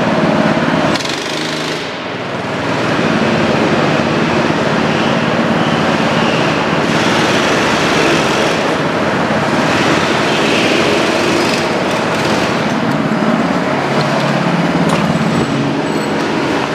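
Several go-kart engines running hard, their pitch shifting up and down as karts accelerate and pass, with a brief dip in level about a second in.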